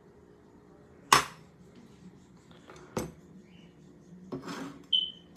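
Sharp metal knocks and clinks as parts of a disassembled Benjamin Ironhide air rifle are handled on a stone countertop. The loudest knock comes about a second in and another near three seconds, then some rubbing, and a last clink with a brief high ring near the end.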